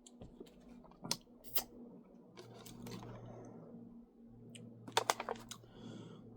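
Light clicks and taps of a plastic Lunchables tray and its packets being handled while toppings are put on a cracker pizza. There are a couple of single clicks early on and a quick cluster of clicks near the end, over a faint steady hum.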